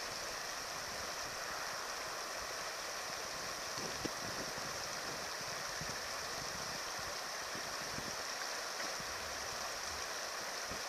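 Fast, choppy current of the Arkansas River rushing over its bed, a steady wash of flowing water, with a brief knock about four seconds in.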